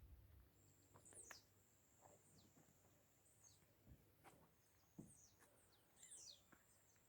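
Faint birds calling at dusk: scattered short, high chirps, many falling in pitch, over a thin steady high-pitched tone that comes and goes.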